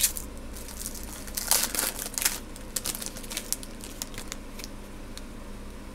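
Foil wrapper of a Panini Score football card pack crinkling as it is handled and torn open, in a run of crackles that is loudest about a second and a half to two and a half seconds in, then lighter.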